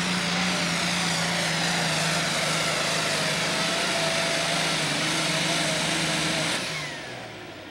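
Super stock International tractor's turbocharged diesel engine running flat out under load as it pulls the sled, a steady low drone topped by a high whine. About six and a half seconds in, the engine is shut off at the end of the pull, and the sound drops away with a falling whistle as the turbo winds down.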